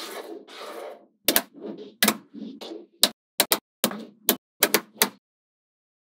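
Magnetic balls snapping and clicking together, about a dozen sharp clicks at irregular intervals, some in quick pairs, after a soft rustle in the first second.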